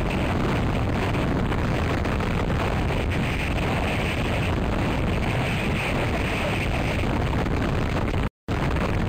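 Strong storm wind from Hurricane Sandy's approach buffeting the microphone and rushing through wind-whipped pine boughs as a loud, steady rumble and hiss. The sound cuts out for an instant near the end.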